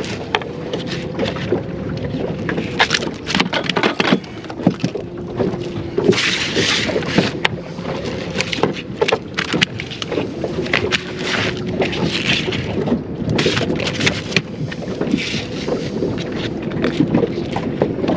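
Irregular knocks, clicks and rustling of a freshly caught fish being handled and measured for legal size on a small boat, over a faint steady hum and wind.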